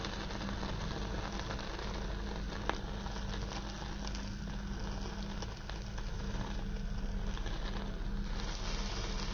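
Gas stove burner flame running steadily with marinated chicken kebabs on skewers sizzling directly over it, under a steady low hum.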